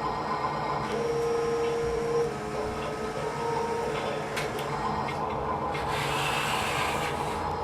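Small electric motors of an RC construction machine whirring steadily, with a higher whine that starts and stops a few times.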